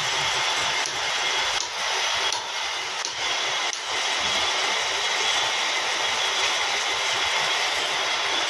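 Metal lathe running with its cutting tool on the workpiece: a steady hissing cut with a faint high whine, dipping briefly a few times in the first four seconds.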